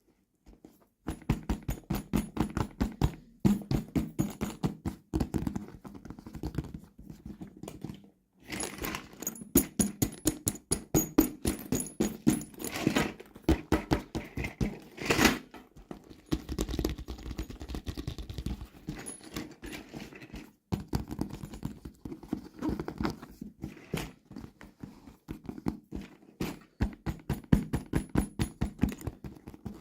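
Rapid, irregular clicking and tapping of hands handling and opening plastic toy packaging, in quick runs broken by a few brief pauses.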